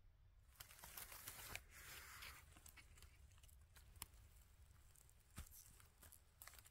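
Faint rustling and crackling of leaf litter, dry grass and twigs as a hand reaches in and pulls a fluted black elfin saddle mushroom out of the forest floor, with a few sharp clicks scattered through it.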